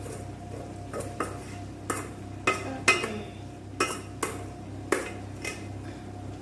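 Spoon knocking and scraping against a cooking pot while cooked basmati rice is handled, about nine sharp clinks over a few seconds, loudest near the middle, over a steady low hum.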